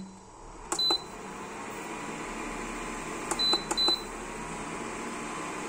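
Cooktop control beeps: a short high beep with a click about a second in, then two more in quick succession a little past the middle, as the hob is switched up to high heat. Under them, a steady hiss builds as the oil and masala in the pan begin to sizzle.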